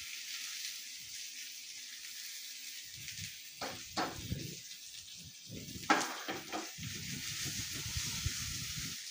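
Hot oil sizzling in a nonstick frying pan as pieces of patra (rolled colocasia-leaf slices) stir-fry. From about three seconds in, a silicone spatula scrapes and turns the pieces, with a couple of sharp clicks.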